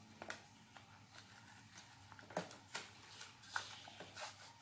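Faint crinkles and clicks of a toy car's plastic blister packaging being picked open by hand, a handful of separate small snaps.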